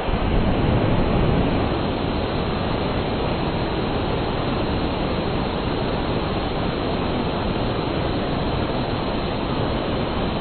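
Homemade aerospike rocket engine burning fuel-rich gaseous propane with compressed air, firing with a steady rushing hiss of exhaust. It is a little louder in the first second or so, then holds even.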